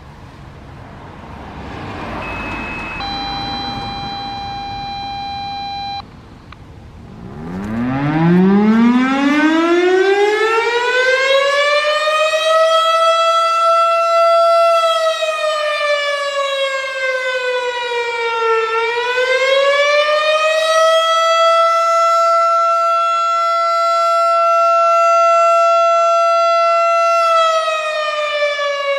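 Federal Signal STH-10 three-phase rotating chopper siren sounding its attack signal. It winds up steeply from a low growl to full pitch, holds, sags and climbs back up, holds again, and begins to wind down near the end. Before it starts, a scanner sends the siren activation tones: a short high beep, then a steady lower tone for about three seconds.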